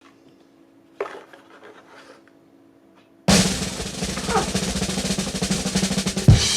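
Background music: a quiet stretch with a single hit about a second in, then a loud snare drum roll starting about three seconds in, ending in a heavy drum hit near the end.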